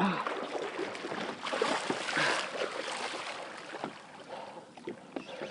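Water splashing and churning, strongest around two seconds in and then easing off: a hooked tarpon thrashing at the surface beside the boat.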